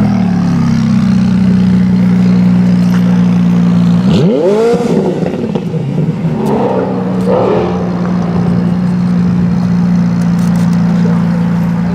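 McLaren 570S's twin-turbo V8 idling, revved once about four seconds in, its pitch rising and falling back, then settling back to a steady idle.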